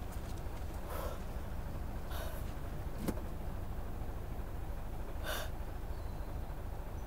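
Steady low road and engine rumble inside a moving car's cabin, with a few short breaths from the driver and a single sharp click about three seconds in.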